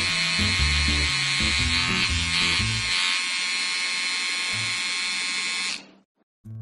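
Electric hair clippers buzzing steadily, a cartoon sound effect of the head being shaved, over background music with a low bass line that drops out about halfway through. The buzzing cuts off near the end.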